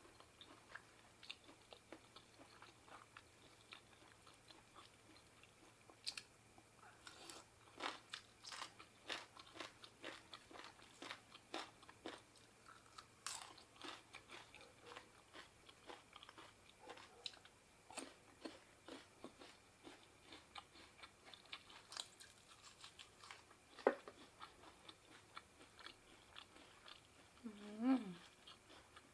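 A person chewing and crunching mouthfuls of spicy seafood papaya salad close to the microphone, in many small irregular bites, with a short hum from the eater near the end.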